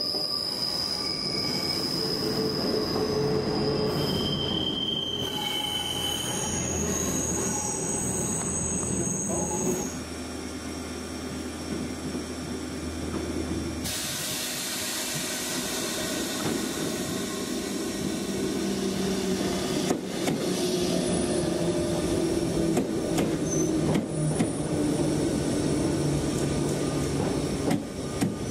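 Double-deck RER electric commuter trains moving through stations: high-pitched wheel squeals sounding over the rumble of a train passing along an underground platform, then the rumble and hiss of another train running into an open-air platform.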